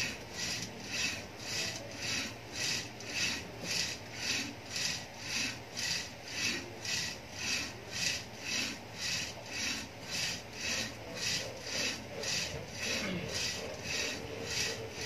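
Rope running back and forth through an overhead shoulder-pulley exerciser as the handles are pulled alternately: a raspy rubbing stroke about twice a second, steady and even throughout.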